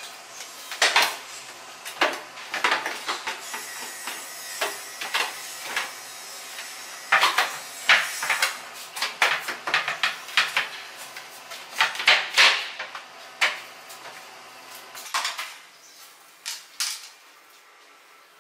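Irregular clatter: sharp knocks and metallic clinks, dozens of them at uneven spacing, from wooden cabinet parts and metal kitchenware being handled under a kitchen sink.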